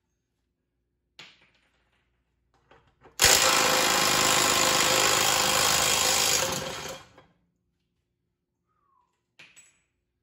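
Impact wrench hammering in one burst of about four seconds on a 50-year-old control-arm bolt that has never been off, with a couple of light knocks from handling before and after.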